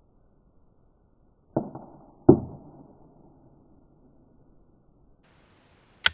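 Two sharp thumps about three quarters of a second apart, each with a short fading tail, the second louder. A brief sharp click comes near the end.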